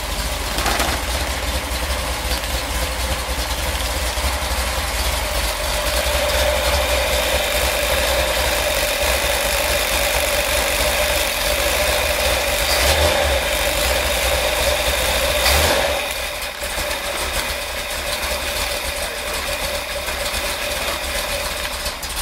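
Freshly rebuilt Ford 428 FE V8 running steadily on its first start-up, a little louder through the middle stretch and dropping back somewhat about three-quarters of the way through.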